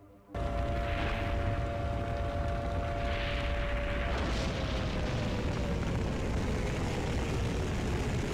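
Missile-barrage sound effects: a steady roar of rockets in flight that starts a moment in, with a whining tone that holds and then slowly slides down after about four seconds, and a few brief rushing swells.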